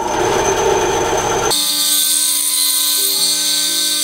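Benchtop band saw running, its blade cutting through a wooden broomstick dowel. The sound changes abruptly about a second and a half in, the low rumble dropping away and leaving a steady whine.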